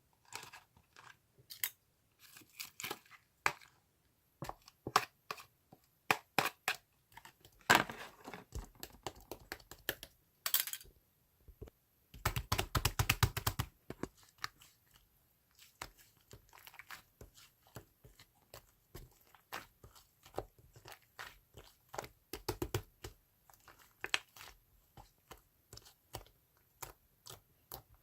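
Slime being squished and pressed by hand, giving irregular sticky clicks and small pops, with a fast run of crackling pops for about two seconds near the middle.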